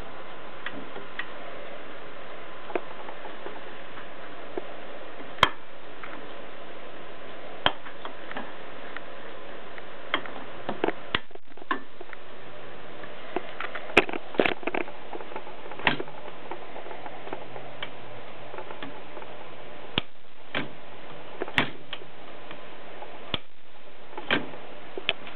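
1923 Adler No. 7 typewriter clicking: single sharp keystroke or mechanism clacks, irregular and one to three seconds apart, over a steady hiss.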